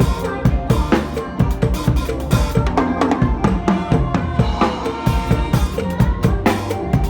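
Drum kit played to a fast mor lam dance rhythm: a quick, steady stream of kick, snare and rim hits over a backing track's bass and melody.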